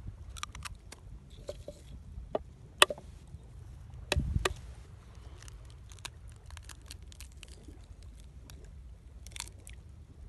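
Eggs frying in hot oil in a pan over a small wood fire: scattered crackles and pops, with a couple of louder snaps about three and four seconds in, over a low steady rumble.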